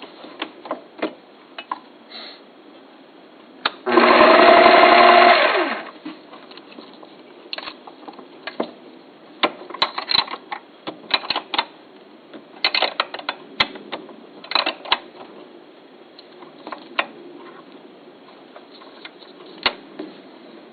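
Small metal lathe running with a steady low hum while the cutting tool turns down a deer-antler blank, giving irregular scrapes and ticks. About four seconds in, a loud pitched screech lasts about two seconds.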